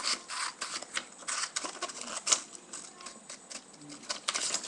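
Scissors snipping through a sheet of paper: a run of short, crisp cuts at an uneven pace, the sharpest a little past two seconds in.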